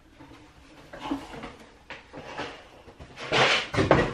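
Cardboard box and packaging being handled while a coffee machine is lifted out: a few soft knocks, then a louder rustling scrape about three seconds in.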